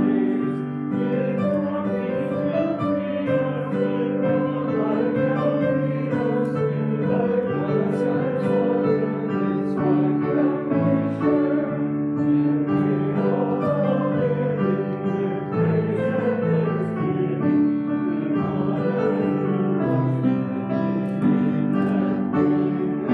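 A congregation singing a hymn together, accompanied by piano.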